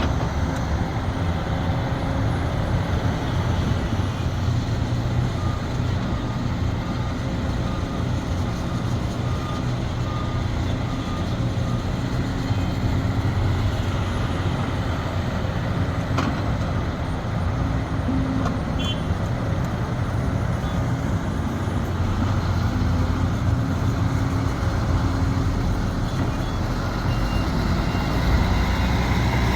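Sumitomo SH370LHD-6 excavator's diesel engine running under working load, its pitch and level rising and easing as the machine works.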